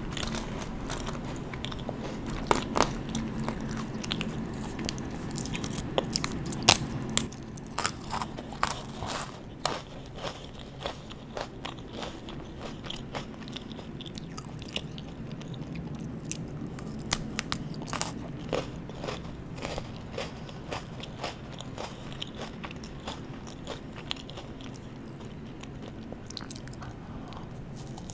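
Close-up crunching and chewing of strawberry Pocky biscuit sticks: sharp snapping bites, thickest in the first ten seconds, then slower, sparser chewing crunches.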